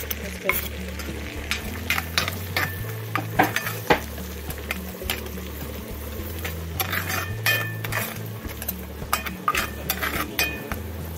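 A metal spoon stirring minced garlic through sizzling melted butter in a skillet, with frequent clinks and scrapes of the spoon against the pan.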